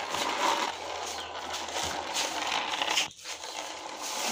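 Plastic toy car wheels rolling and scraping along concrete as the toy police car is pushed by hand, with a brief break about three seconds in.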